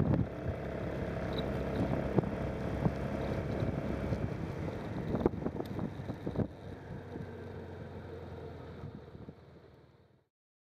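Engine and wind noise from a vehicle driving along a road, with a few brief knocks. It drops in level partway through and fades out to silence near the end.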